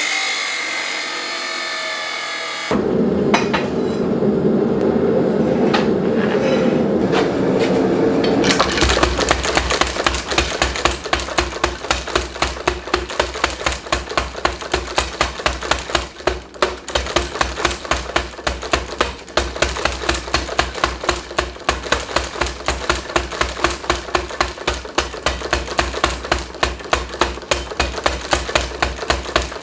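Steady rushing noise, then, from about nine seconds in, rapid evenly spaced hammer blows on hot steel, about three a second, over a low hum, drawing a bar out to a taper for a scroll.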